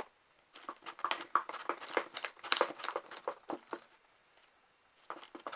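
Spoon stirring sticky PVA-glue slime in a bowl: a run of irregular wet clicks and crackles for about three seconds, stopping about a second before the end.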